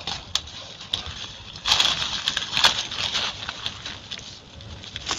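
Crinkling and rustling of foil-faced insulation wrap and plastic gloves as hands press strips of adhesive tape onto the wrapped car battery, with small clicks, loudest from about two seconds in.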